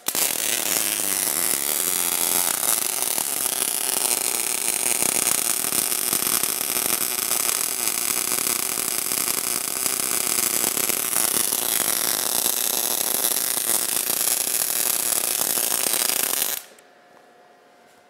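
MIG welding arc crackling steadily as a carriage-driven torch lays a push-technique bead at an exaggerated torch angle, then cutting off sharply when the arc stops about 16 to 17 seconds in.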